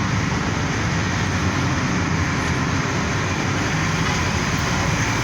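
Steady motor-vehicle noise: a continuous low engine hum with traffic-like rumble and no distinct events.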